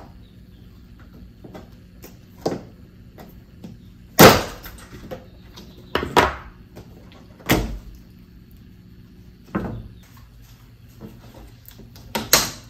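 Plastic clips and tabs snapping free as the weather-rotted window seal molding is pried up off a 2009 Honda Civic door by hand. It makes a string of sharp separate clicks and pops, about nine of them, the loudest about four seconds in and a quick pair near the end.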